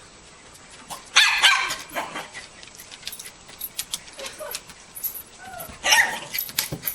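Dog barking: a loud burst of barks about a second in and another near the end, with fainter sounds between.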